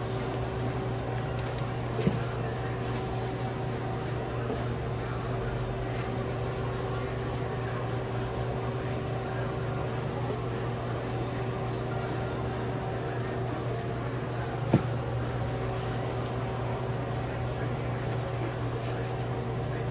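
Steady hum of restaurant kitchen machinery, with a few steady tones in it. A soft knock about two seconds in and a sharper knock near the end.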